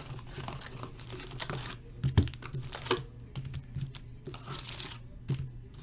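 Scattered light clicks and taps, with a short crinkle about four and a half seconds in, over a low steady hum.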